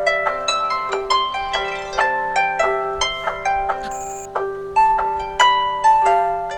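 A Samsung Galaxy S7 stock ringtone: a quick melody of plucked, harp-like notes, several a second, each ringing briefly, over a repeating lower note.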